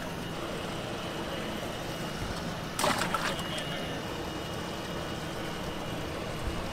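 Water splashing briefly in a bass boat's livewell about three seconds in, as bass are grabbed and lifted out. Under it is a steady low background noise.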